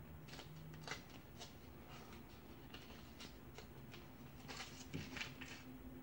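Paper cutouts and masking tape handled by hand: faint scattered rustles and crinkles of paper with short tearing sounds from the tape, coming quickest about five seconds in.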